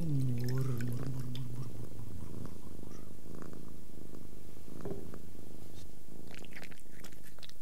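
Domestic cat purring steadily. A low, drawn-out pitched sound falls in pitch and fades about a second and a half in.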